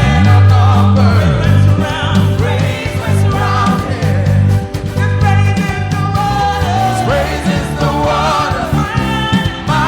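Live gospel praise music: singers and a choir over a full band with strong bass.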